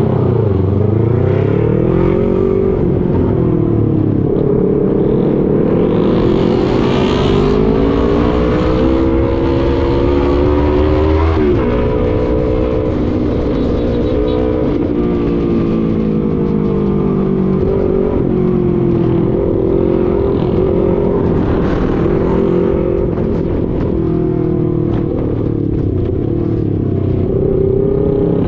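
Motorcycle engine running on the move, its pitch rising and falling again and again as the throttle opens and closes, over a steady rush of wind and road noise.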